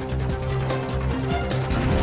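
News-bulletin background music: sustained chords over a steady beat.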